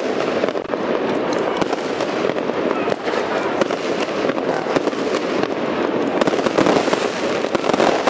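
Aerial fireworks display going off in a continuous, rapid string of bangs and crackles.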